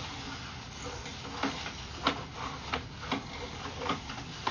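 Sewer inspection camera and its push cable being fed along a sewer pipe: a string of irregular clicks and knocks, about one every half second to a second, over a steady hiss.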